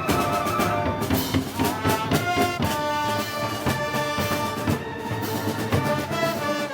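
Brass band playing Moros y Cristianos festival music, sustained brass with steady drum beats.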